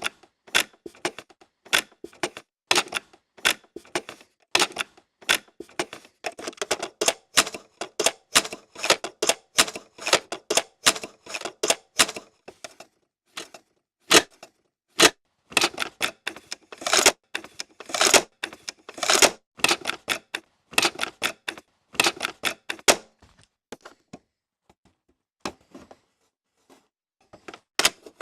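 Cassette player's eject mechanism and tape cassette clicking and clacking: rapid, irregular sharp plastic-and-metal clicks, several a second, broken by a few short pauses.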